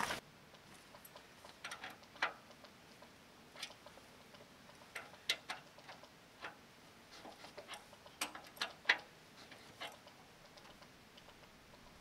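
Faint, irregular metal clicks and taps of a wrench working the adjustment bolts on a steel sawmill bed.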